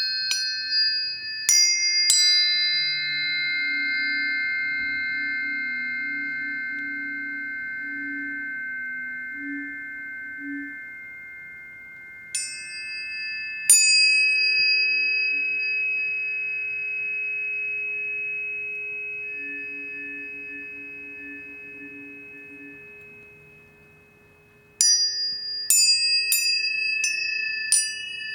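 Planetary tuning forks struck and left to ring, each strike a sharp tap followed by long, pure tones that slowly fade. There are a few strikes at the start, two more about halfway through, and a quick run of strikes near the end.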